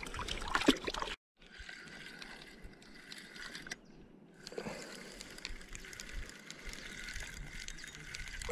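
A spinning reel being cranked, giving a quiet steady whir with faint rapid ticking. Shallow water splashes briefly near the start.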